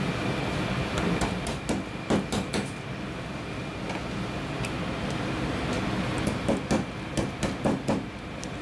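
Kitchen knife knocking and cutting on a plastic cutting board as a rockfish fillet is trimmed: a cluster of sharp knocks about a second in and another near the end, over a steady background noise.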